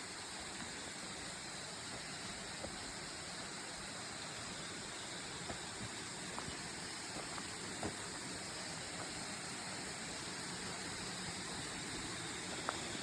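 Steady, even rush of a waterfall, with a few faint clicks.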